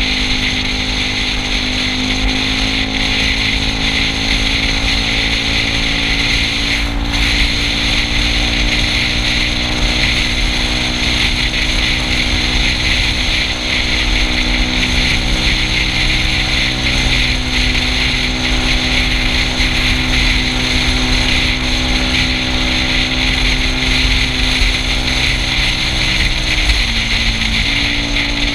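Yamaha Cygnus scooter's single-cylinder engine running steadily at cruising speed, under a strong rush of wind and road noise. Near the end the engine note drops briefly, then picks up again.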